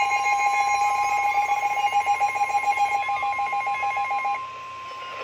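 Emergency Alert System attention tone: a steady high alert tone, like the NOAA Weather Radio warning tone, sounding together with a louder, rapidly pulsing lower tone. About four seconds in the pulsing tone stops and the steady tone carries on alone, quieter.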